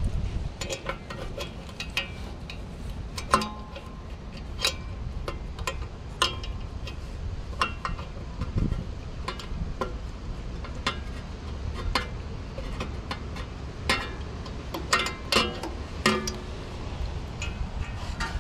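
Wrench clinking against the steel hub of a condenser fan blade as it is worked onto the set screw: irregular sharp metallic clicks and taps, some ringing briefly.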